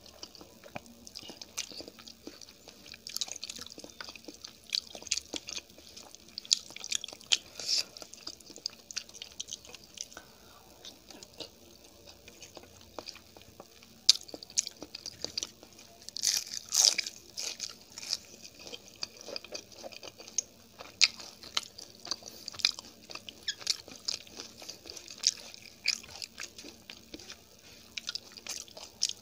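Close-miked chewing of food, with irregular crisp crunches and wet mouth clicks; the crunching is loudest about halfway through.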